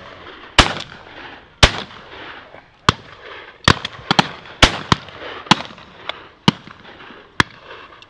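Shotgun fire from several guns shooting at driven birds: about eleven shots in eight seconds. Some are close and loud, others fainter, and several come in quick pairs, as from a double gun's two barrels.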